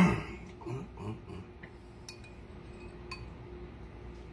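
A metal spoon clinking lightly against a ceramic bowl of beef stew, a few sharp little clinks with a brief ring, after a louder knock at the very start. A faint steady hum runs underneath.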